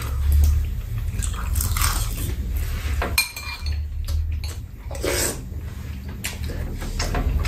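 Metal spoons and chopsticks clinking and scraping against bowls as two people eat, in scattered light clicks, with one brief ringing clink about three seconds in.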